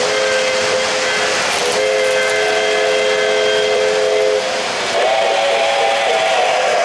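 O-gauge model steam locomotive's sound system blowing a chime steam whistle: a steady chord of several notes held about four seconds, then after a short break a higher, wavering chord. Under it, the steady rumble of model trains running on the track.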